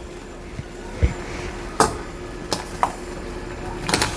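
Halved baby potatoes going into a pot of boiling water: a low thump about a second in, then several sharp clinks and knocks against the pot.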